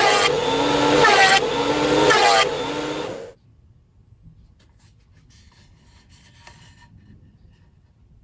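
DeWalt DW734 portable thickness planer running under load, its motor pitch dipping and recovering about once a second as it cuts. It stops abruptly a little over three seconds in, leaving only faint light ticks.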